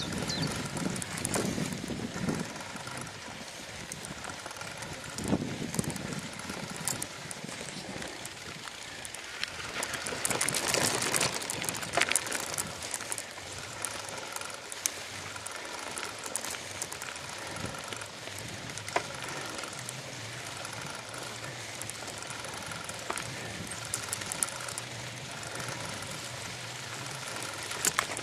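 Bicycle riding over a rough grassy towpath: the frame and mounted camera rattle and knock over bumps, with a rushing noise that swells about ten seconds in. A faint short tone repeats about once a second.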